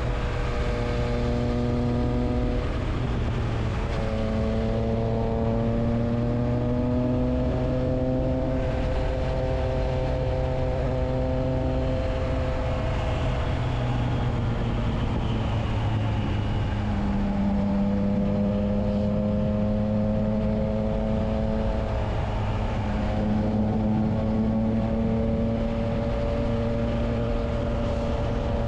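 Triumph Trident 660's inline three-cylinder engine running through a Spark aftermarket exhaust with the dB killer fitted: a steady, deep exhaust note whose pitch drifts slowly and shifts a few times.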